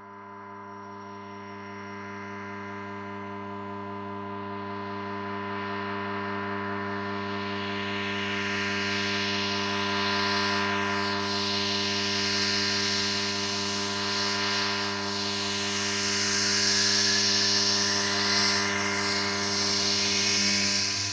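Horror sound-effect drone: a steady, humming low drone built of several fixed tones under a hiss, swelling louder over the first ten seconds or so, with a rising whine in the last few seconds.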